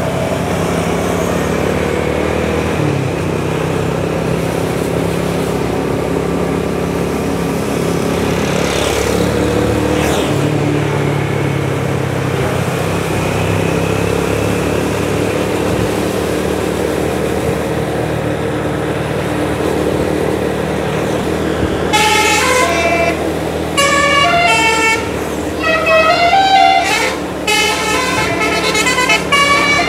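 A heavy vehicle's engine running steadily, then from about 22 seconds in a bus's telolet musical air horn plays a quick melody of short notes stepping up and down in pitch, repeating in bursts until the end.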